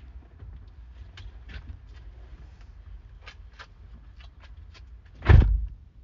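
Scattered small clicks and knocks over a low rumble, then one loud thump a little after five seconds in.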